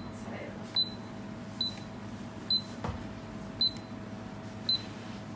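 A short, high electronic beep repeats about once a second, six times, over a steady low hum of kitchen equipment. There is a single knock near the middle.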